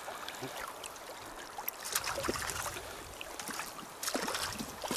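River current rippling and lapping close by, with scattered small splashes and ticks as a small hooked fish is reeled in across the surface.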